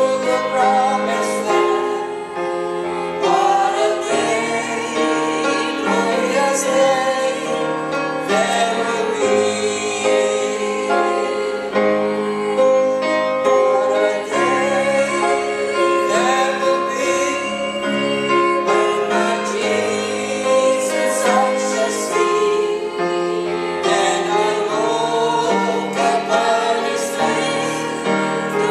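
A small group of men and women singing a hymn together in harmony, with instrumental accompaniment under the voices.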